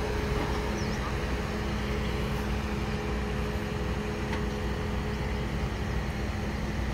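Suzuki Jimny's 1.5-litre four-cylinder petrol engine running at a steady speed under constant throttle as the vehicle crawls over uneven dirt, the condition its brake LSD needs to brake the free-spinning wheels. The steady engine note drops away near the end.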